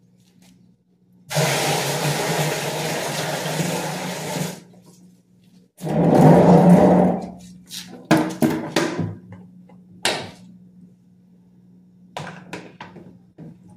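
Water rushing in two bursts, one about three seconds long and then a shorter, louder one, followed by several knocks and clatters from plastic buckets being handled, over a faint steady hum.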